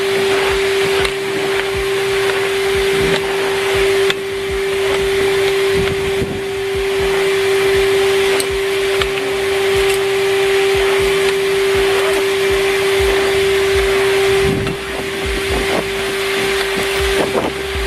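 Numatic Henry vacuum cleaner running: a steady motor whine over the rush of suction air, with a few low knocks.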